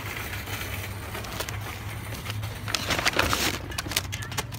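Groceries being handled in a shopping cart: a burst of rustling with a few sharp clicks about three seconds in, over a steady low hum.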